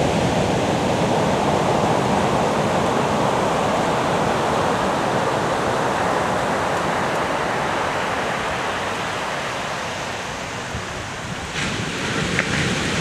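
Ocean surf breaking: a steady rush and wash of waves, easing a little before a fresh wave crashes near the end.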